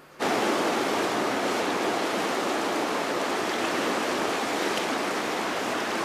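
Fast-flowing stream rushing steadily.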